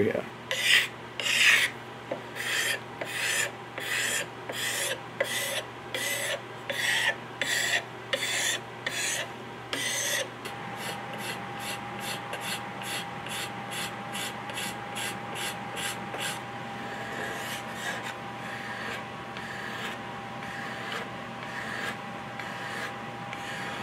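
Steel wood scraper pulled in even strokes along a maple gunstock, nearly two strokes a second. About ten seconds in the strokes give way to softer, quicker rubbing of hand sanding with sandpaper.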